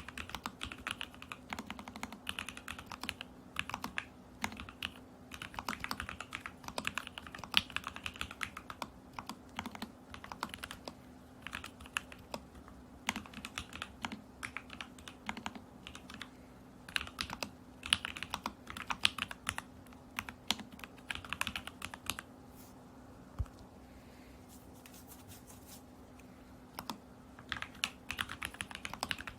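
Typing on an Alice-layout mechanical keyboard with lubed and filmed Lavender switches in a stacked acrylic case with a tape mod: quick runs of keystrokes in irregular bursts. The typing stops for several seconds about three quarters of the way through, then starts again near the end.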